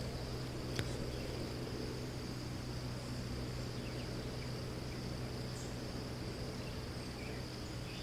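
Steady insect chorus: a continuous high-pitched buzz, with a low steady hum underneath and one small click about a second in.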